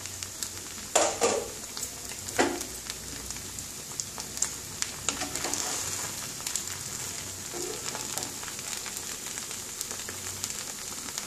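Pulao rice sizzling faintly in a kadai on the gas flame as a wooden spatula turns it, with two sharp knocks of the spatula on the pan in the first few seconds and softer scraping after.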